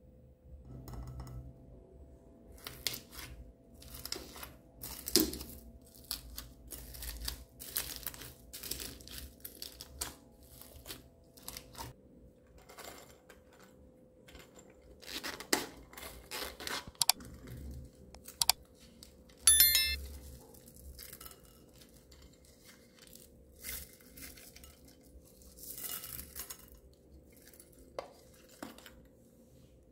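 Hands handling and opening small plastic cases and a zippered coin purse of beads and trinkets: scattered clicks, rustles and light clinks. The loudest is a cluster of sharp clicks with a brief ring about two-thirds of the way through.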